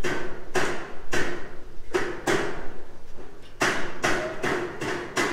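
Repeated hammer blows on a building site, about ten strikes at an uneven pace with a pause near the middle, each leaving a short ring.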